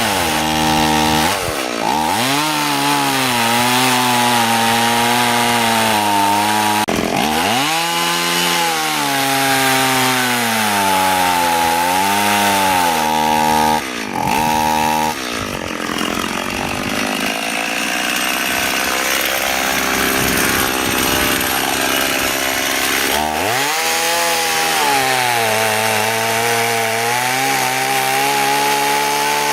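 Stihl MS 180 (018) two-stroke chainsaw cutting hardwood at full throttle. Its pitch sags as the chain bogs down in the cut and climbs back, again and again. From about 16 s to 23 s in it labours at a lower, uneven speed, then revs back up: a small saw working at its limit in a big trunk.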